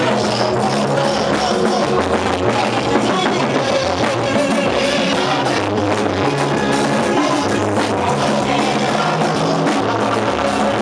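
Loud amplified band music with drums, guitar and bass: a steady beat with the bass notes changing every second or so.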